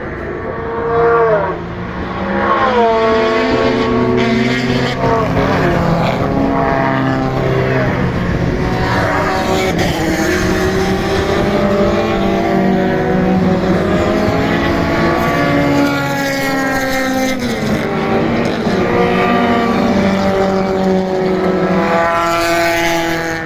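Several touring race cars at racing speed, one after another, their engine notes overlapping throughout. The pitch falls as they brake and change down and rises again as they pull away.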